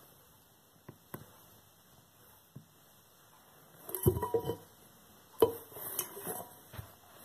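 Silver-plated teapot clanking under a high-heeled boot, the thin metal body ringing briefly after each blow as it is dented. A cluster of knocks comes about four seconds in and one hard strike about a second and a half later, with lighter taps before and after.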